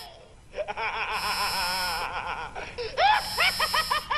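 A cartoonish cackling laugh: a drawn-out wavering cackle, then from about three seconds in a rapid run of short 'ha-ha-ha' bursts.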